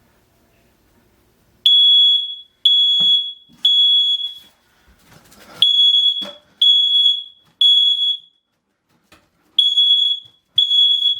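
Battery-operated combination photoelectric smoke and carbon monoxide alarm going off in smoke-alarm mode, set off by aerosol test smoke: loud, high-pitched beeps in groups of three with a pause after each group, the temporal-three evacuation pattern. The beeping starts about two seconds in.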